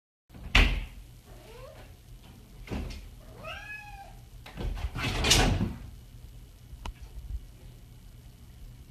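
A cat meowing, one arching call about three and a half seconds in and a fainter one before it, among knocks and rattles from a lever door handle and door as the cat jumps up, hangs on the handle and pulls the door open. A sharp knock comes about half a second in, the loudest rattle around five seconds in, and a light click near seven seconds.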